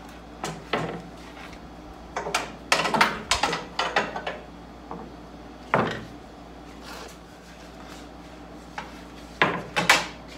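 Wooden nightstand parts knocking and clattering as they are handled and set down on the workbench: a few separate knocks, a busy run of them a couple of seconds in, one more near the middle, and a quick pair near the end.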